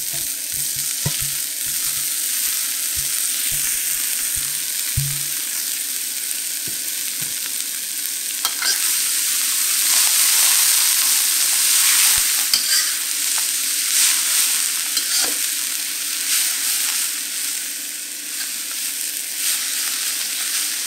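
Pea shoots stir-frying in hot oil with garlic and ginger in a wok: a steady sizzle, louder in the middle, with a metal spatula scraping and clicking against the wok as it tosses them.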